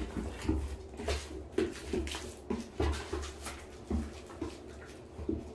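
A puppy making short play grunts and whines, repeated about every half second, while it mouths and tosses a plush toy.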